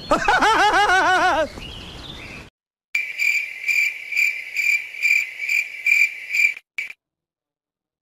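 A man laughing heartily in quick repeated 'ha-ha' bursts for about a second and a half. After a short gap comes a cricket-chirping sound effect, evenly pulsed about two and a half times a second, which stops suddenly: the stock cue for awkward silence after a joke falls flat.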